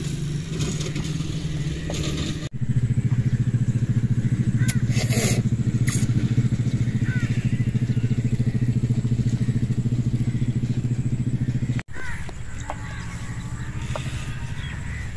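An engine running steadily nearby, a low even hum with a fast regular pulse. It cuts in sharply about two and a half seconds in and cuts off just as sharply near twelve seconds.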